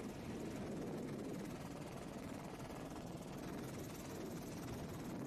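Steady drone of a helicopter's engine and rotors in flight.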